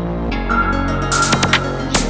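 Ambient music loop: low sustained tones under a high held note that comes in about half a second in, with a few sharp clicks, the loudest at the very end.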